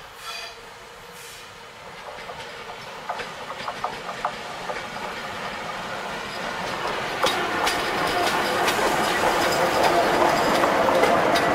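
Electric freight locomotive hauling car-carrier wagons approaching and passing close by: wheels rumbling and clicking over the rails, growing steadily louder and loudest from about seven seconds in as the locomotive and first wagons go past. A short high tone sounds right at the start.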